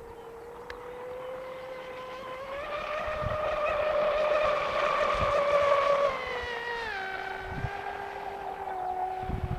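RC racing catamaran's Feigao 540 XL brushless motor, run on a 6-cell LiPo, whining at speed as the boat runs across the water. The whine grows louder and slightly higher as the boat approaches, then drops in pitch as it passes about six or seven seconds in, and carries on quieter at the lower pitch.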